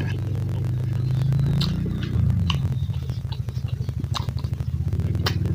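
Wet mouth clicks and lip smacks of a person chewing a mouthful of rice and pork, a few scattered sharp clicks. A steady low throbbing hum runs underneath and is the loudest part.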